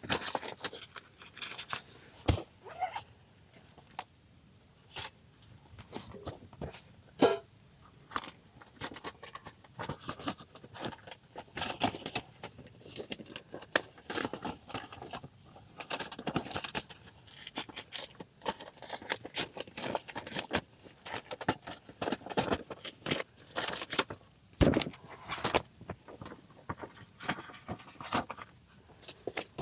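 Irregular clicks, knocks and rustling of small objects being handled, with a few sharper knocks standing out.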